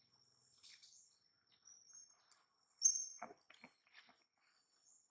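Birds chirping: two short, high-pitched chirps about three seconds in, over a faint steady high whine.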